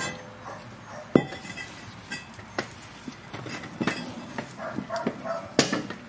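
Metal hand tools clinking and knocking as they are handled, in a run of separate sharp strikes, the loudest about a second in.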